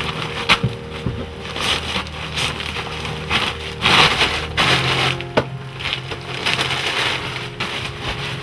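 Plastic sack rustling and crinkling as it is handled, in irregular crackly bursts.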